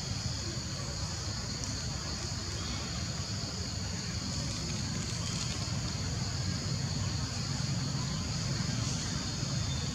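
Steady, high-pitched drone of insects in the forest canopy, unbroken throughout, over a continuous low rumble.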